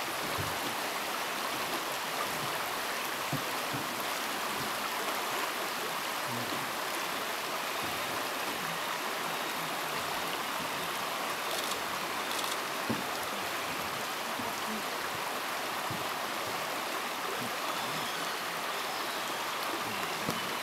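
A river flowing over a gravel bed: a steady rushing hiss of water that stays constant throughout, with a couple of faint ticks about twelve seconds in.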